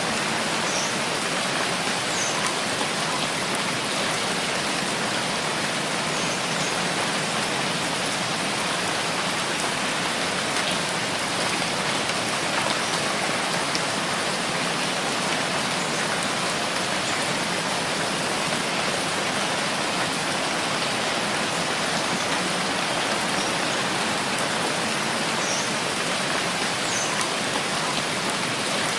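Steady rainfall: an even, unbroken hiss of rain falling on surfaces.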